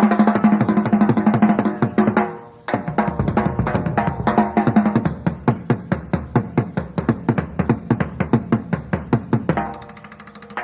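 Rock drum kit played solo live: a fast, dense snare roll for about two and a half seconds breaks off suddenly, followed by a rapid run of single strokes across the toms and bass drum. It drops quieter near the end before another roll begins.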